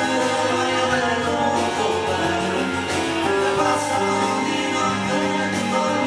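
Keyboard music played on a Roland E-86 arranger keyboard: a melody of long held notes over a steady low bass line.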